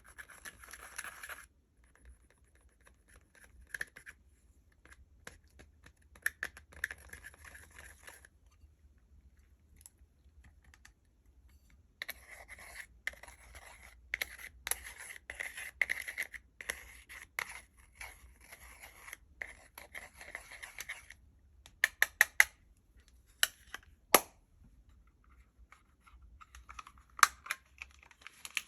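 Slime being mixed with makeup by hand, giving crackly scraping and clicking in bursts with pauses. A few separate sharp clicks follow near the end.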